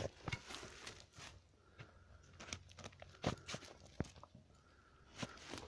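Faint, irregular crunches and rustles of dry leaf litter and soil as a Lagotto Romagnolo truffle dog noses into the ground searching for a truffle.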